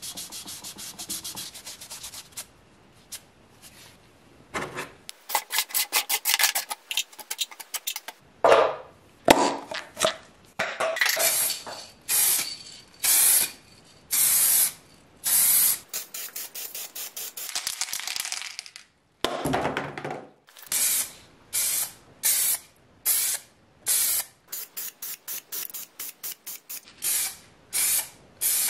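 Light rubbing on a hard plastic toy part for the first two seconds or so. Then an aerosol spray can hisses in many separate bursts, some about half a second long and others in quick short trains near the end, as plastic primer and then metallic paint go onto the parts.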